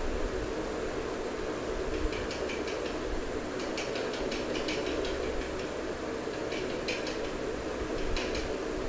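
Flat spatula stirring tomato purée into chicken curry in a nonstick pan: short scraping and clicking strokes come in small clusters several times, over a steady hum and hiss.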